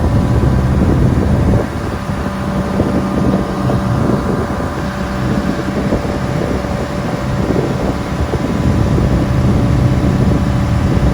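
Motorboat engine running steadily under way, with wind noise on the microphone. The level drops a little about a second and a half in.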